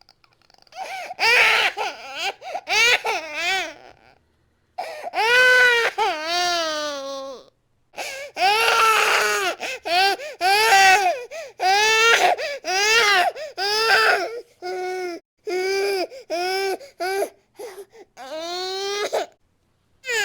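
Infant crying hard in a string of loud wails, each a second or so long with its pitch bending up and down, broken by quick gasps for breath and a few brief pauses.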